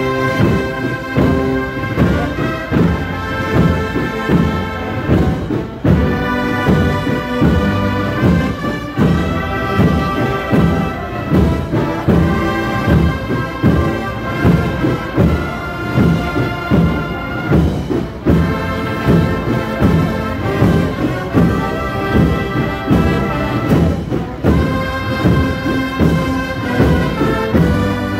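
Processional brass band playing a slow march for a religious float: sustained brass chords over a steady drum beat, in phrases that pause briefly about every six seconds.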